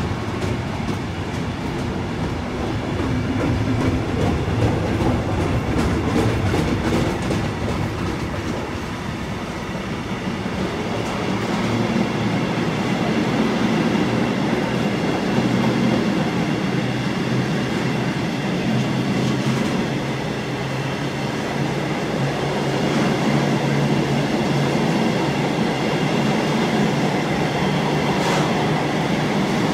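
A train running past at close range, its wheels clattering over the rail joints, with a steady low drone throughout.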